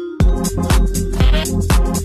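Electronic dance music with a steady four-on-the-floor kick drum, about two beats a second. A held-note breakdown ends just after the start, when the drum and bass drop back in.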